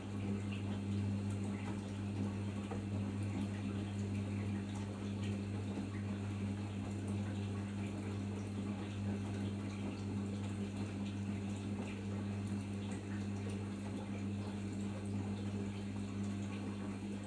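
Arçelik 5083 washing machine in its final rinse: water running through the machine with a steady low electric hum.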